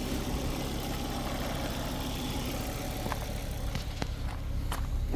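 XR5 car engine idling steadily, with a few faint light clicks in the second half.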